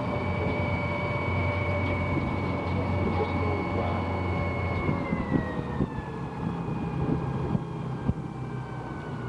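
Tour boat's engine running with a steady hum and a thin whine; the engine note drops in pitch about five seconds in.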